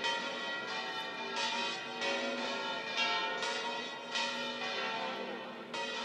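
Church bells ringing in a peal, a fresh stroke about every three quarters of a second over the still-sounding earlier ones.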